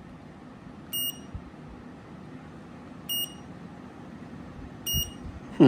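Three short, high electronic beeps, about two seconds apart, over a low steady background hum.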